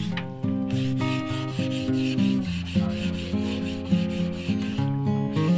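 Fine 320-grit sandpaper rubbed back and forth by hand over a painted wooden wardrobe panel, smoothing the first coat of paint before the second. Background music plays throughout.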